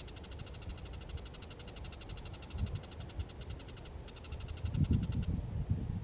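Bull-headed shrike giving its rapid chattering call, a fast run of repeated high notes: one long bout of about four seconds, a brief break, then a shorter bout ending about five seconds in. Low rumbling noise grows louder over the last second and a half.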